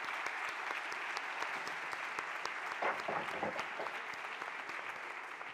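Audience applauding: a dense, steady applause of many hands that slowly fades toward the end.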